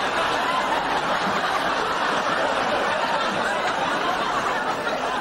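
Studio audience laughing steadily, a dense crowd of laughter with no break.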